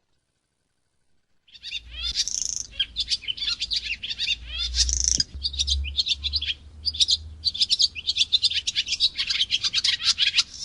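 Small songbird singing a fast, continuous stream of high chirps and trills, starting about a second and a half in, with a low rumble underneath.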